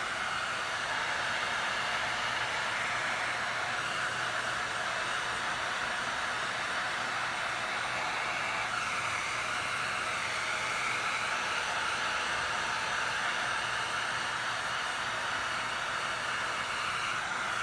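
Electric heat gun blowing steadily, shrinking heat-shrink tubing over a crimped ring terminal on a battery cable.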